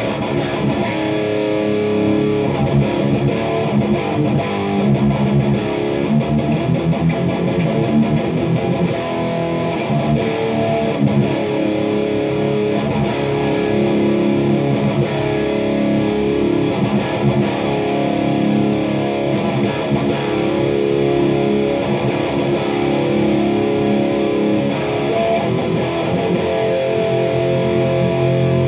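Electric guitar played through the red channel of a PRS MT 15 tube amp head into a Mesa Boogie speaker cabinet. It plays a continuous run of riffs and strummed chords.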